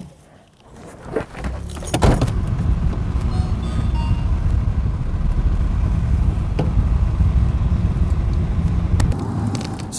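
A car door clunks shut, then about two seconds in the Mitsubishi GTO's twin-turbo V6 starts and runs steadily through its aftermarket twin-exit exhaust as the car drives off, fading near the end.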